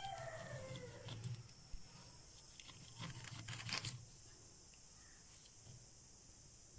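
A knife cutting and snapping the crisp leaf stalks off a head of cauliflower on a wooden cutting board, with a cluster of sharp cracks about three to four seconds in, over a steady faint high hiss. A short falling cry sounds right at the start.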